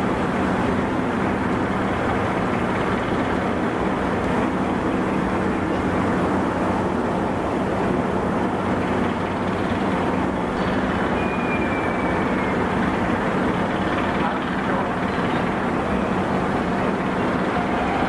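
Steady low hum of ship machinery from a destroyer and its harbour tug moving slowly past, with a faint brief whistle about eleven seconds in.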